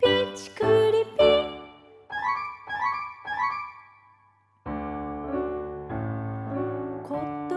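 Background music led by piano-like struck notes, breaking off briefly about four and a half seconds in, then going on with fuller, steadier chords over a low bass.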